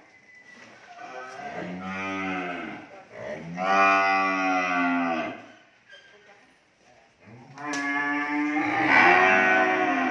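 Cattle mooing: three long moos, one after another with short pauses between, the middle one the loudest.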